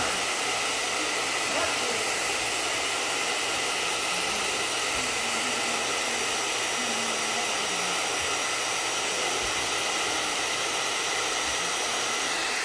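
Hand-held hair dryer running steadily, a constant rush of blown air with a faint steady whine from its motor.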